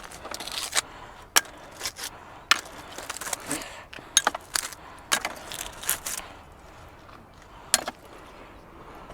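About a dozen sharp clicks and knocks of hard objects, irregularly spaced, with brief scraping between them, thinning out in the last couple of seconds.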